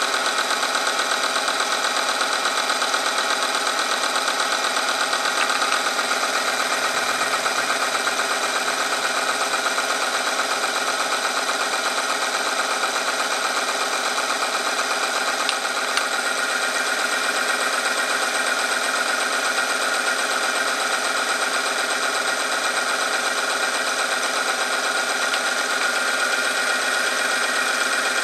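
Electric motor of an oil film strength tester running steadily, spinning its test ring against the loaded sample in hot oil: an unbroken whine made of several constant tones.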